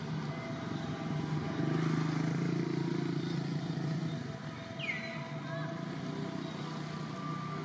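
A steady low engine hum from a passing vehicle, swelling about one and a half seconds in and easing off after four seconds, with a short high chirp sliding downward around five seconds in.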